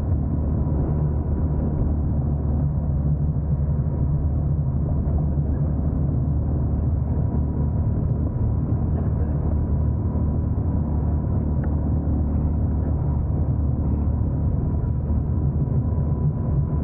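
A boat's engine running steadily while under way: an even, low drone with a faint, constant high whine on top.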